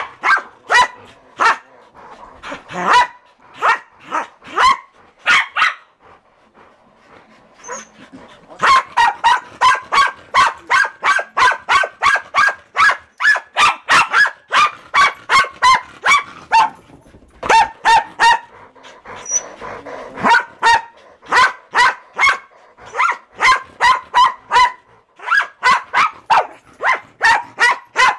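Corgis barking rapidly and repeatedly, at about three sharp barks a second in long runs, with a short lull about six seconds in.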